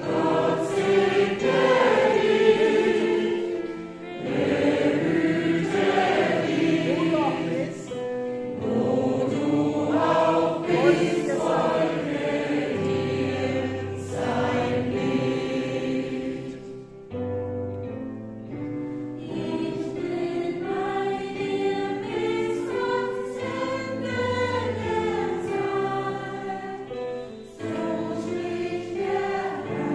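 Gospel choir of men and women singing in harmony, the voices moving between held notes.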